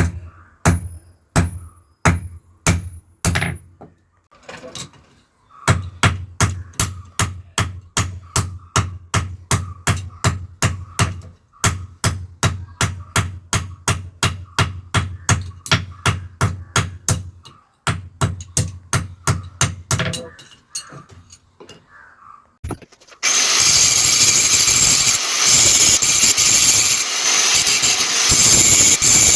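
Hand hammer striking steel on an anvil to forge a chisel: rhythmic ringing blows, about three a second, in runs broken by short pauses. About 23 seconds in, a machine starts up and runs with a loud, steady noise.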